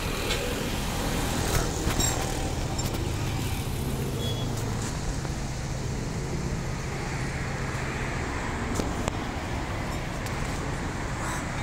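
A motor vehicle engine running steadily amid road traffic noise, with a few short knocks about one and a half seconds in and again near the end.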